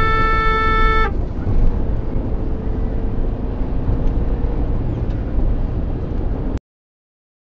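A car horn sounding one steady held note, which stops about a second in. Steady road and engine rumble of a moving car follows, then all sound cuts off abruptly near the end.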